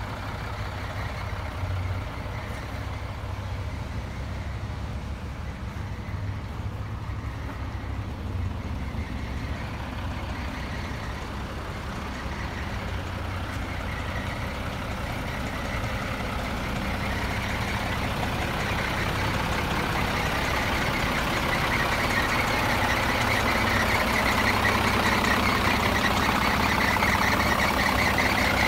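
Scania 94D 220 truck's diesel engine idling steadily, growing louder toward the end as the cab is approached.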